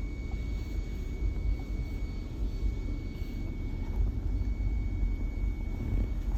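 2010 GMC engine running with a steady low rumble and a thin high whine over it. The engine has set a P0300 random misfire code, with fouled plugs.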